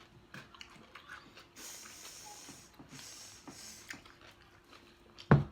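Aerosol whipped cream can spraying, a steady hiss lasting about two seconds, among small clicks of eating; a single thump near the end.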